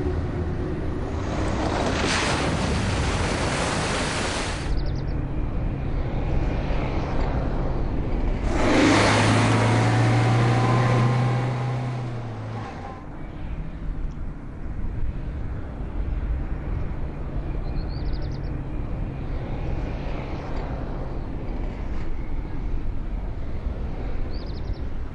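Suzuki Jimny driving off-road over gravel and rocks: its engine running, with two louder spells of engine and tyre noise as it passes, the second with the engine note dropping, then a quieter steady running sound.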